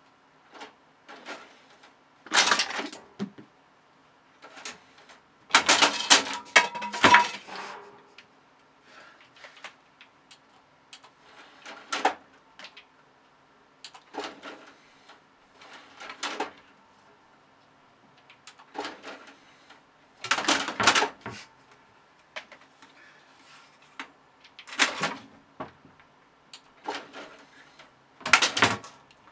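Bursts of plastic clattering and knocks from a computer tower's DVD drive tray moving in and out and being batted by a cat, coming every few seconds, over a faint steady hum.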